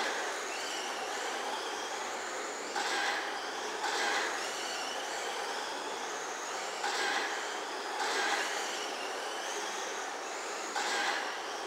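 1/10-scale RC trucks racing on a dirt oval: a high motor and gear whine that rises and falls with the throttle over the hiss of tyres on dirt. It swells as the trucks pass, two about a second apart, roughly every four seconds.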